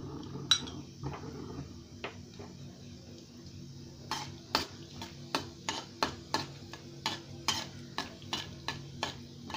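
Steel spoon stirring and scraping in a kadai, tempering mustard seeds, cumin and dried red chillies frying in shallow hot oil with a faint sizzle. From about four seconds in the spoon strikes the pan in a steady run of strokes, a little over two a second.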